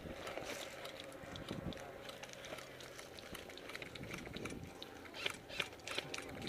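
Footsteps crunching on dry dirt and brush: a string of uneven clicks and crunches that gets busier near the end.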